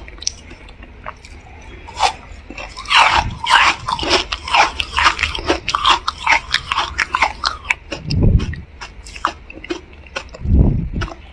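Close-up biting and chewing of a chunk of freezer frost: dense, crisp crunching made of many sharp cracks, heaviest from about three to seven seconds in. Two low thuds come near the end.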